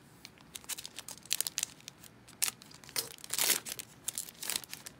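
Foil trading-card pack wrapper being torn open, crinkling and tearing in a run of sharp, irregular crackles, with the loudest, longest tear about three and a half seconds in.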